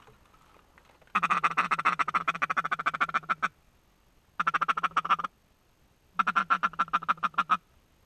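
Duck call blown in a mallard feed chatter: three fast runs of short, nasal quack notes at about ten a second, the first run the longest, each starting and stopping abruptly.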